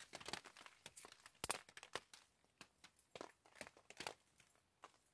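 Raindrops tapping on a plastic tarp overhead: sparse, irregular sharp ticks, with one louder click about a second and a half in.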